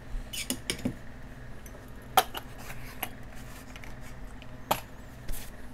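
Light clicks and taps of small tools and a solvent dispenser bottle being handled and set down on a workbench. There is a sharper knock about two seconds in and another near the end.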